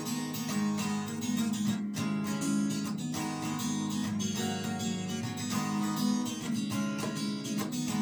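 Acoustic guitar strummed in chords, a solo instrumental passage with no singing.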